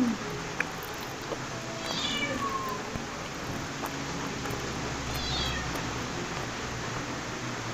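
A cat meowing, two high calls that fall in pitch, about two seconds in and again about five seconds in.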